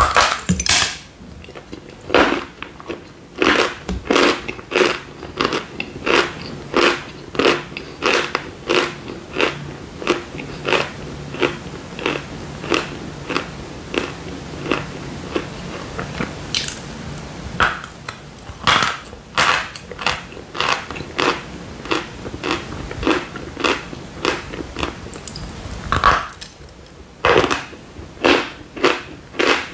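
Dry chalk bar bitten and chewed: a crisp crunch about twice a second, with a few louder cracks as pieces break, the loudest near the end.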